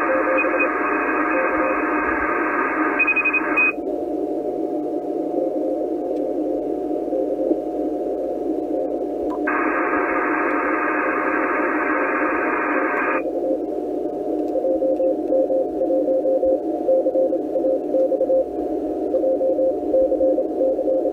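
ICOM IC-746 HF transceiver receiving in CW mode on the 17-metre band: a weak Morse code signal keyed at one steady pitch inside a bed of band hiss. The receive filter is switched between wide and narrow. About four seconds in, the hiss narrows and a second, higher-pitched Morse signal drops out. The wide hiss returns around ten seconds in and narrows again about three seconds later.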